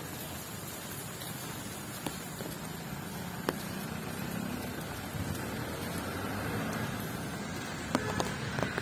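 Light road traffic passing on a wet road: a motorcycle and a truck at first, a scooter a few seconds later, their engines and tyres making a steady hum with a few small knocks near the end.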